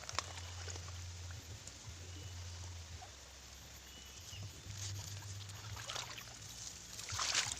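Shallow pond water sloshing and splashing as someone wades and works the plants down with his hands, with a few louder splashes, the loudest near the end.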